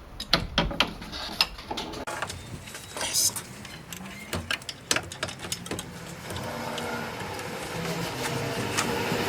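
Scattered clicks and knocks of hands and tools working a serpentine belt back onto the crankshaft pulley in an engine bay. Over the last few seconds a rushing noise grows steadily louder.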